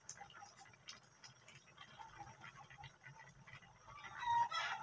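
A chicken clucking in a steady rhythm of short notes, with a louder, longer call near the end.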